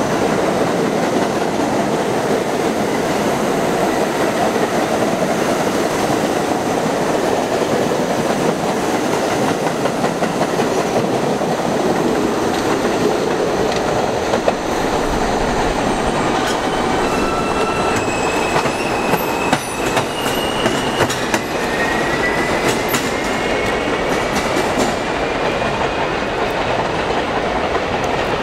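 New York City Subway trains running past, steel wheels clattering over rail joints and switches. Wheel squeal joins as thin high tones in the second half, one of them rising slowly.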